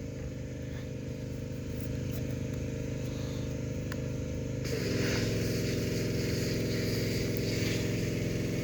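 A steady mechanical hum from a running motor or engine. About five seconds in, its pitch shifts and it gets a little louder, with added hiss.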